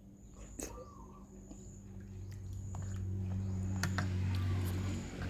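Quiet background sound: a steady high-pitched whine, with a low hum swelling in after about two seconds and a few light clicks.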